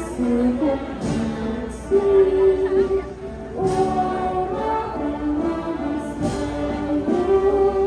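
A girl singing a slow hymn into a microphone, with long held notes.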